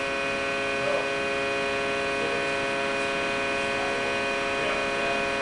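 Steady hum with many fixed tones from a large compression testing machine running while it holds a crushed concrete column under load.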